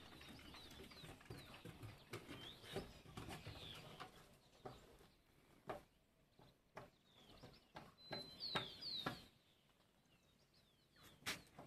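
Faint birdsong: small birds chirping in short, quick notes, a burst of several chirps about eight seconds in. A few faint clicks come in between.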